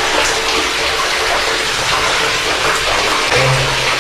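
Steady rush of running water flowing through the tunnel.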